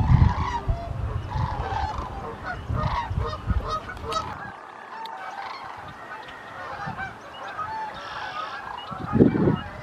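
A large flock of waterbirds calling all at once: many overlapping honks and calls form a continuous chorus. There is a low rumble over the first few seconds and a short thump near the end.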